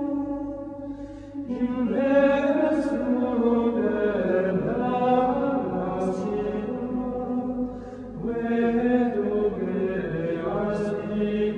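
Background music: a slow sung chant of long held notes in phrases, with breaks between phrases about a second in and again near eight seconds.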